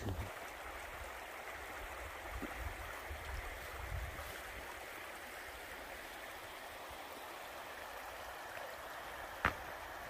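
Shallow mountain stream running over rocks: a steady, even rush of water. A single short click comes near the end.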